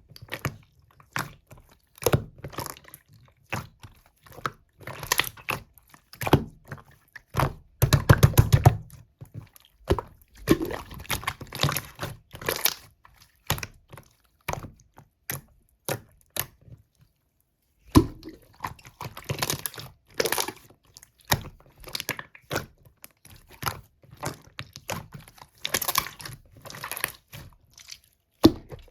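Slime being squished, pressed and stretched by hand, giving sticky clicks, crackles and small air-pocket pops. A fast run of pops comes about 8 seconds in, and there is a brief pause about two-thirds of the way through.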